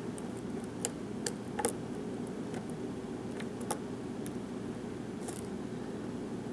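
Faint, scattered clicks of a lock pick working the pins of a Kwikset pin-tumbler lock held in a deep false set, about half a dozen, mostly in the first few seconds, over a steady low background hum.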